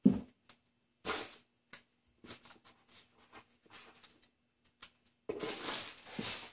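Light hand work at a bench: a click, a soft scrape, then a scatter of faint taps as a tape label is pressed onto a piece of piano cabinet wood, followed near the end by about a second of rustling.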